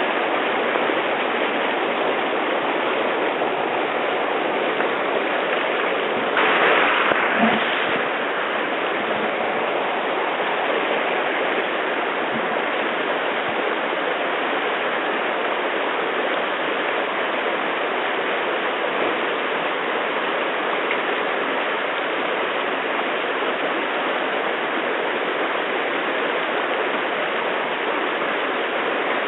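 Mountain river rushing steadily over rocks at a crossing, a loud even rush of water, with a brief louder surge about six seconds in.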